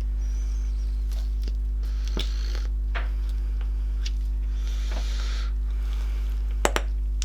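A steady electrical mains hum under soft, wet squelching as grease is pressed down into a CV joint. There are a few light ticks and two sharp clicks near the end.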